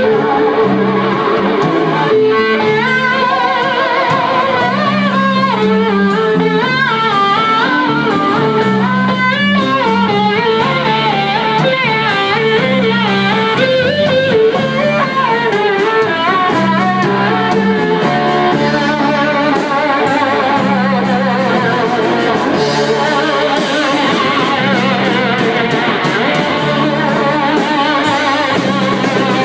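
Amplified blues band playing an instrumental break: a lead line with wide, wavering vibrato over a steady, repeating bass riff, giving way after the middle to fuller chordal playing.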